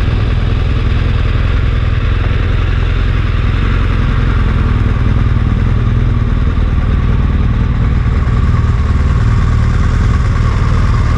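Steady, loud driving noise of a vehicle at highway speed: a constant low rumble of engine and tyres on the road with a hiss of wind over it.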